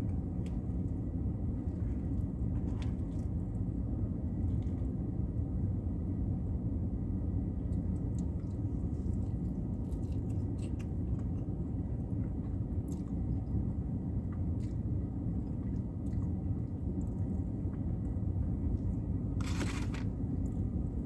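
Steady low rumble inside a vehicle's cabin, with faint chewing and a few light clicks as a mouthful of cheese fries is eaten off a plastic fork. A short rustling burst comes near the end.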